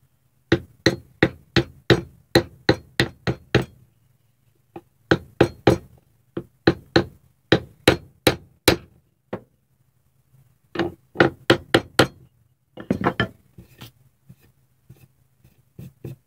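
Hammer striking a wooden block laid over a cigar box guitar fretboard, seating the fret wire into its glued slots. Sharp knocks at about three a second in two long runs with a short pause between, then a few more, a quick flurry of taps, and lighter taps near the end.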